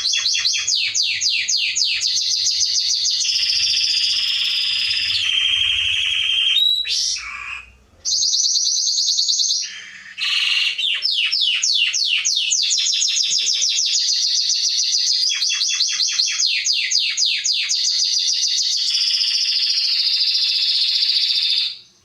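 Domestic canary singing a long song of rapid trills and held rolling notes, with two brief breaks partway through. The song stops shortly before the end.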